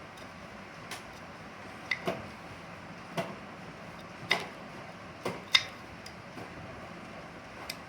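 Irregular sharp metallic clicks and clinks, about eight in all, the loudest a little past the middle: hand tools and metal engine parts knocking together while the engine is not running.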